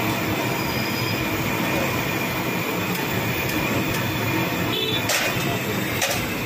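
Sabudana vadas deep-frying in hot oil in an iron kadhai: a steady, loud sizzle. A few short metal clinks from the perforated steel skimmer come about five and six seconds in.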